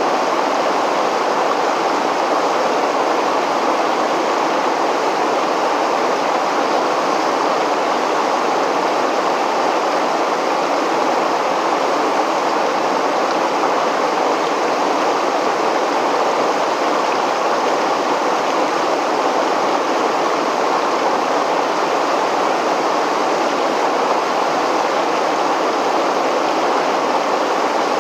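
River water pouring over a weir, a steady, unbroken rush of falling water.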